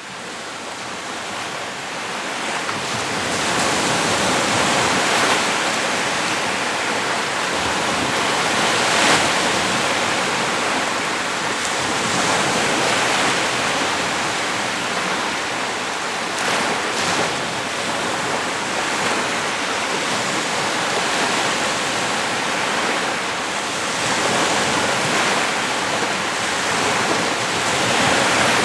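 Lake Huron waves washing onto a beach: a steady rushing wash of surf that swells louder now and then. It fades in over the first few seconds.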